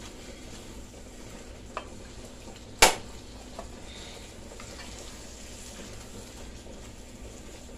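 Shrimp and sausage in tomato sauce sizzling in a frying pan as a spatula stirs them, with a few light clicks and one sharp knock about three seconds in.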